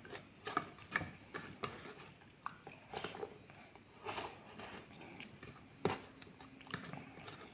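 Close-up mukbang eating sounds of a person eating pork and rice by hand: chewing and lip smacking in short, irregular wet clicks.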